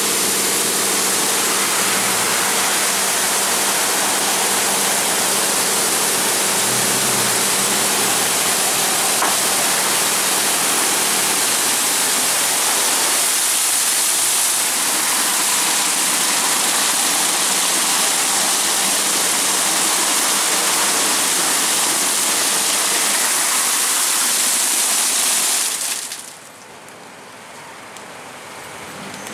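High-pressure water spraying from the nozzles of a WashTec Combiwash car-wash gantry onto a car: a loud, steady hiss, with a steady machine hum under it for about the first ten seconds. The spray stops sharply near the end, and only a much quieter sound is left.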